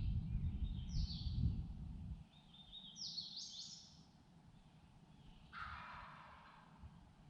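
A songbird singing short, quick high phrases three times, over a low rumble that dies away about two seconds in. A lower, harsher call follows about five and a half seconds in.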